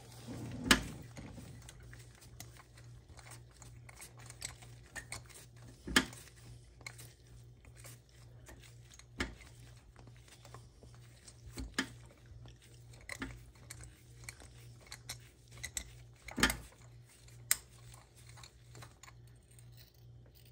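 Scattered light metal clicks and clinks from a socket extension being turned by hand in a spark plug well as a loosened spark plug is unthreaded, over a low steady hum.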